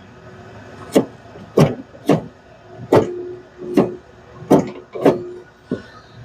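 Door lock mechanism of a 1985 Chevrolet Caprice wagon being worked locked and unlocked, giving about eight sharp metallic clunks, a few of them ringing briefly. The lock rod now carries a makeshift replacement spring in place of a rusted-out coil spring, and the lock is cycling.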